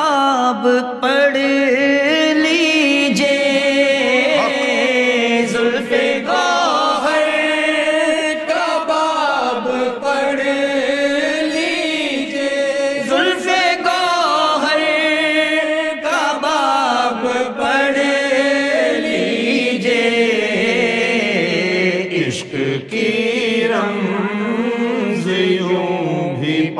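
A man singing an Urdu devotional qasida solo, drawing the verse out in long, ornamented held notes that waver and glide from pitch to pitch.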